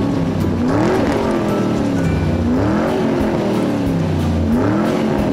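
Background music with an engine-like sound effect that rises and falls in pitch about every two seconds, over steady low tones.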